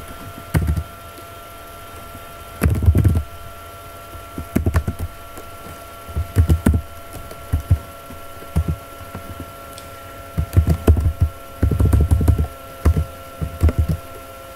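Typing on a computer keyboard in short irregular bursts of keystrokes, each with a low thud, over a faint steady electrical hum.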